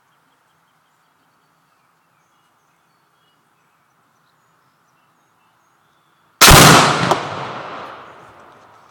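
Binary explosive (Tannerite-type) target detonating when struck by a .22 rifle bullet: one sudden, very loud boom about six and a half seconds in, rumbling and echoing away over the next two seconds or so.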